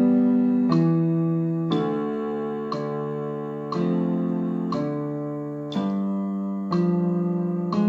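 Keyboard with a piano sound playing a simple accompaniment: a note or chord struck about once a second, each held until the next, with no silences between.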